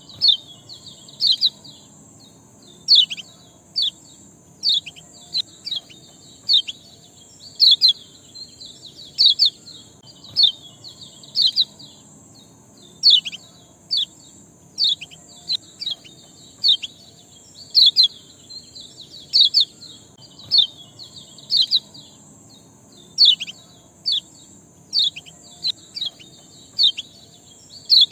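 Small songbird giving sharp chirps that sweep down in pitch, in quick runs of one to three about every second, over a steady high hiss.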